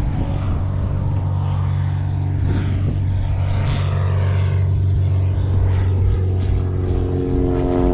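Propeller airplane flying over, its engine a steady drone, with a higher-pitched hum joining in near the end.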